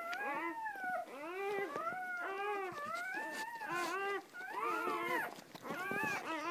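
Newborn puppies crying: a near-continuous run of high, arching squeals, several overlapping.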